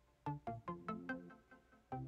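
Quiet background music: a melody of short notes that start sharply and fade quickly, about four or five a second.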